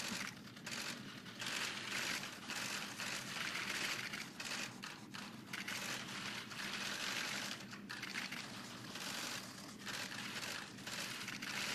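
Many camera shutters clicking rapidly and overlapping, a press pool photographing at close range.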